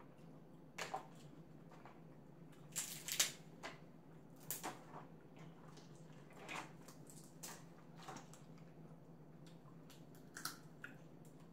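Boiled crab leg shells being cracked and snapped apart by hand: a string of irregular sharp cracks, the loudest about three seconds in, over a low steady hum.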